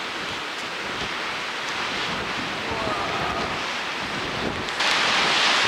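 Strong coastal wind rushing over the microphone, with the wash of the sea below; a louder gust of hiss starts near the end.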